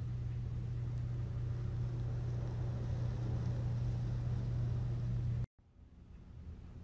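A steady low hum with a faint noisy hiss over it, which cuts off suddenly about five and a half seconds in; fainter background noise follows.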